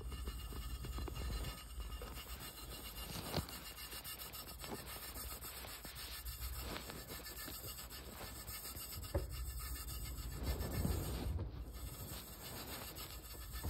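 Clear plastic hamster wheel spinning under a hamster running hard, a steady rubbing, scraping whir with a few louder knocks.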